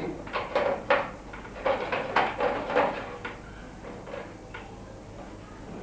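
A CD-ROM drive being fitted into a computer case's drive bay: a quick run of knocks and clicks over the first three seconds or so, then quieter handling.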